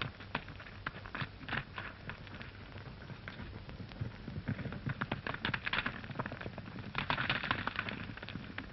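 Horse galloping on dirt, a quick irregular clatter of hoofbeats that grows louder after the midpoint and is loudest near the end, over the steady low hum of an old film soundtrack.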